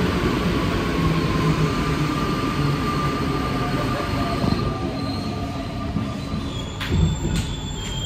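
Alstom NS-93 metro car heard from inside while running: a steady rumble and hiss from the running gear with faint steady tones in it. A thin high tone sets in about five seconds in, and two or three sharp knocks come around seven seconds.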